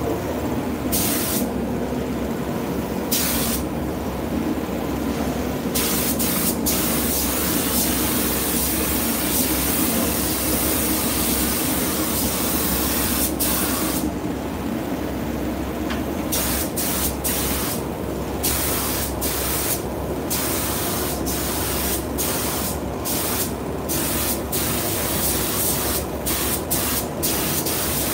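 Gravity-feed paint spray gun hissing as its trigger is pulled and released, so the hiss comes in passes with gaps, longer pauses early and around the middle and short quick bursts in the second half. A steady low hum runs underneath.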